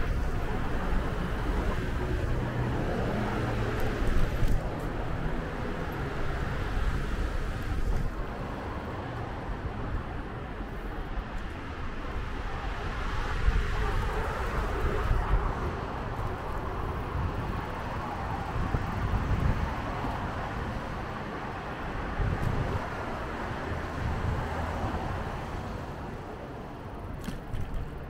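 City street traffic heard from a moving bicycle, with wind buffeting the microphone; a steady rumble that swells a little as vehicles pass.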